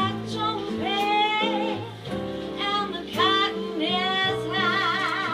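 A woman singing live into a microphone, backed by acoustic guitar and sustained low accompaniment notes. Near the end she holds a long note with vibrato.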